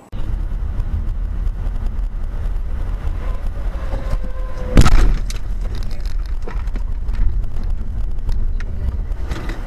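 Steady low road and engine rumble of a moving car, picked up by a dashcam inside the cabin. About three and a half seconds in a short steady tone starts, and it ends in a single loud thump about five seconds in.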